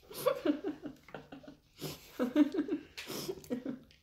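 A person laughing, breathy giggles coming in several short bouts.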